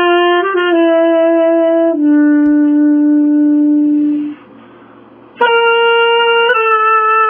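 Solo saxophone playing a slow melody of held notes, stepping down to one long low note, then a short breath pause a little past halfway before the melody resumes.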